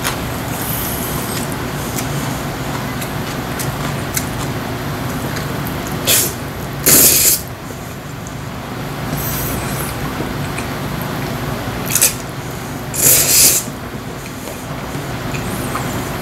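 Bibim-guksu noodles slurped up from a bowl. There are two loud slurps, each a quick short suck followed by a longer one of about half a second. The first comes a little before halfway and the second about four-fifths of the way in, over a steady background hiss.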